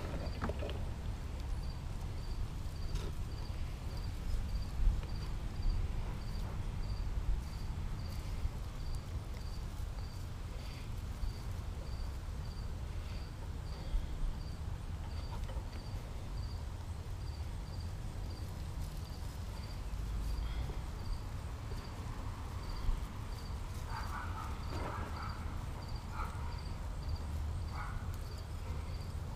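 Scattered small clicks, taps and handling noises, as of copper wire being wrapped and bent around a bonsai trunk, over a steady low rumble. A faint high tick repeats steadily throughout.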